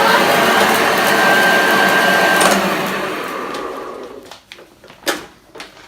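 A 1987 Hoover Junior U1104 300-watt upright vacuum cleaner running with a steady whine, then switched off about two and a half seconds in and winding down until quiet. A sharp knock follows about five seconds in.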